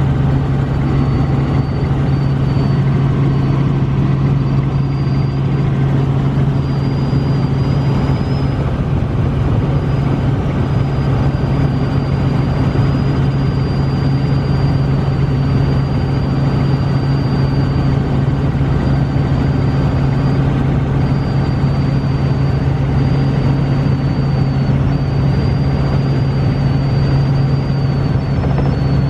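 Light helicopter in flight, heard from inside the cabin: a loud, steady drone of engine and rotors with a thin, high whine above it.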